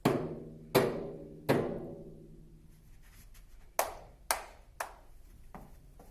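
Knocking in the knock-knock guessing game: three loud knocks about three-quarters of a second apart, each ringing on afterwards, then three lighter, sharper knocks about half a second apart and a faint last one.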